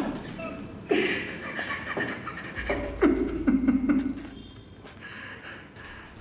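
A man laughing in heavy, breathy bursts, about one a second, dying away after about four seconds.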